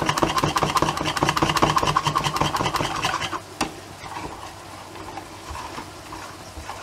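Wire whisk beating a flour-and-milk batter in a bowl: rapid, even scraping strokes that stop about halfway through, after which the whisking is much quieter.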